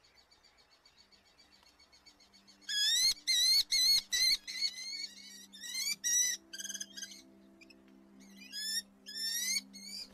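Red-footed falcons calling: a rapid series of high, shrill, wavering notes, about three a second, beginning about three seconds in. The notes fade briefly around seven seconds and pick up again near the end, over a faint steady low hum.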